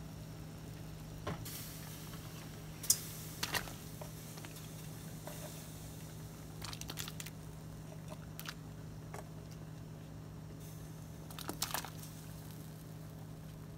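Cubes of tofu pushed off a wooden cutting board with a knife, dropping and splashing a few at a time into a pot of boiling water, with knife-on-board scrapes and knocks; the loudest plop comes about three seconds in and another cluster near the end. A steady low hum runs underneath.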